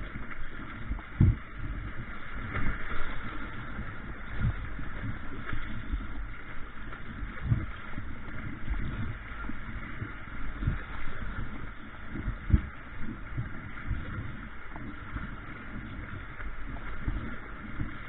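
Rushing water of a shallow river riffle around a kayak. Irregular low thumps come every second or two.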